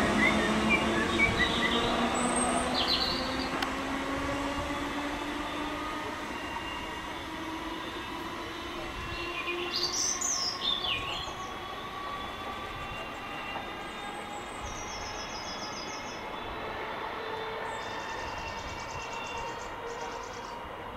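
Electric multiple unit train accelerating away: its traction motor whine rises gently in pitch while the train's sound fades steadily into the distance.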